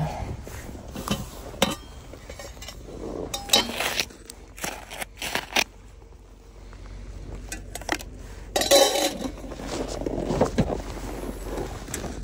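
Stainless-steel camping cook pot being handled: scattered metal clinks, knocks and scrapes, with a longer scraping stretch late on.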